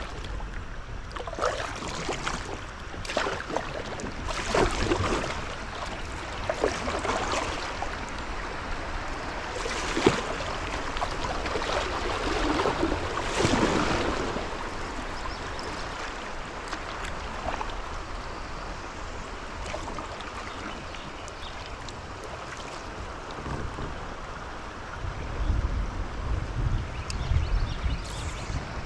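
Kayak paddle strokes splashing in river water, repeated every second or two through the first half, over a steady water hiss. Near the end, wind buffets the microphone with a low rumble.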